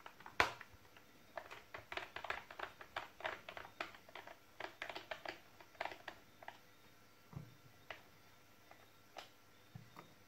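Small screwdriver backing screws out of a plastic cordless-drill battery pack case: a run of faint, irregular clicks and ticks, thick for the first six seconds and then thinning out, with a couple of soft knocks near the end.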